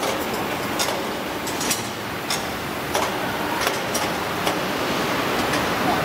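Steady workshop background noise with sharp clicks and knocks every second or so, while a steel harvester chopper housing is pried by hand.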